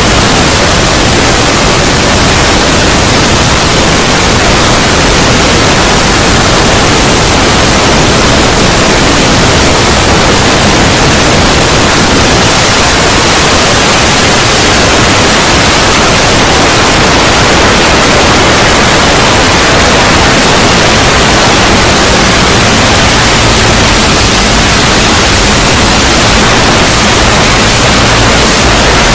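Loud, steady static: an unbroken white-noise hiss, even from low to high pitch, serving as a 'void' sound effect.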